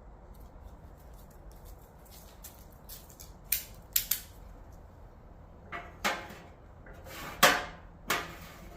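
A series of sharp knocks and clatters of hard objects being handled: two about halfway through, then three more toward the end, the loudest near the end.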